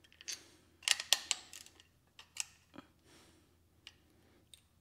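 Ratcheting torque wrench clicking in short irregular runs, with steel wrenches clinking, as the nuts on a cement mixer's gear motor cover bolts are tightened toward the specified 10 foot-pounds.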